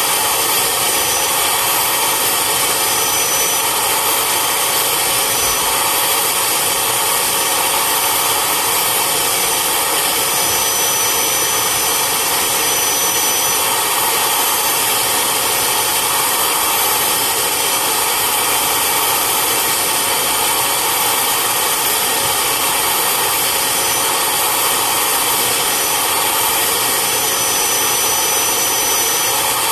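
Carpet extractor's vacuum motor running steadily as its hose is worked over cloth car seats, drawing the shampoo back out of the fabric. A loud, even rushing noise with a faint high whine, unchanging throughout.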